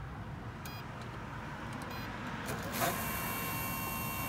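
Electronic beeps from a Power-Pole shallow-water anchor's C-Monster 2 control unit as a remote is paired: two short beeps about a second apart, then a long steady beep for about a second and a half that cuts off suddenly.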